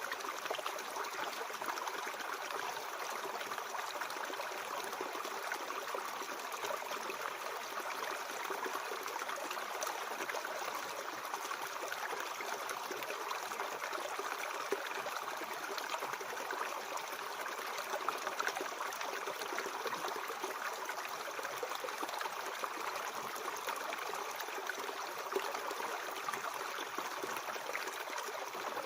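Mountain stream flowing over rocks, a steady even rush and trickle of water.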